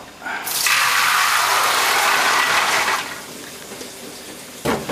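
Soaked marrowfat peas and their soaking water poured from an aluminium pot into a colander, the water rushing out and draining into a stainless steel sink for about two and a half seconds before dying away to a trickle. A single knock near the end.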